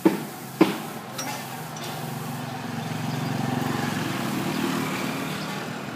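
Two sharp knocks right at the start, then a motor vehicle's engine passing by, swelling for a couple of seconds and fading away.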